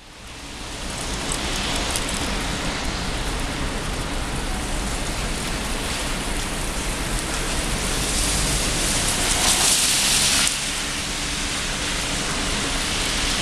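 Steady rain on a wet city street, with the hiss of tyres on wet pavement over a low traffic rumble. About eight seconds in, a louder hiss swells, then stops suddenly a couple of seconds later.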